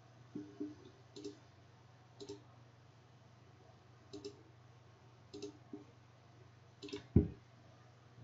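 Computer mouse clicks, single and in quick pairs, every second or so, with one louder thump near the end, over a low steady hum.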